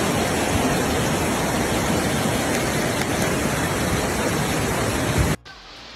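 Steady rushing noise of fast-flowing brown floodwater surging down a river channel in heavy rain. It cuts off suddenly near the end.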